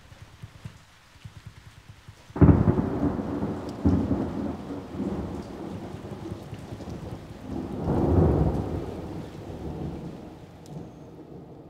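Thunderstorm: a sudden clap of thunder about two seconds in, a second crack soon after, then a long rolling rumble that swells again near eight seconds and dies away, with rain hissing underneath.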